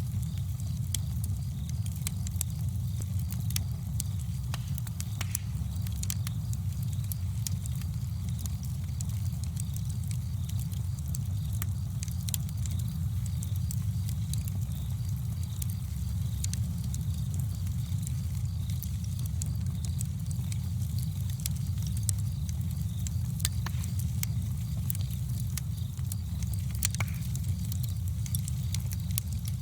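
Campfire burning, with many sharp, irregular crackles and pops over a steady low rumble.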